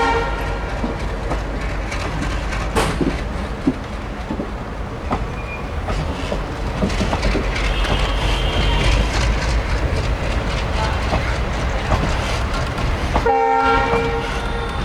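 Indian Railways passenger train running past, its wheels clattering over the rail joints with faint wheel squeal. A diesel locomotive's multi-tone horn sounds at the very start and again for about a second near the end.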